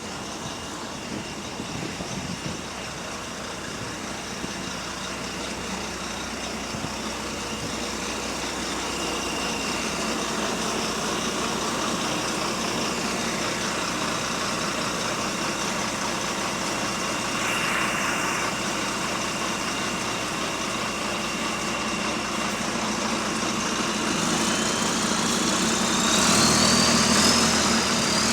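Bus engine running with a slight exhaust leak, growing steadily louder. A high whine rises in pitch near the end.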